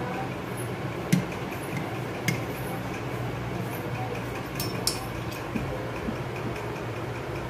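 A few light clicks and taps of a metal spoon against a small aluminium mould as soaked basil seeds are spooned in, over a steady low hum.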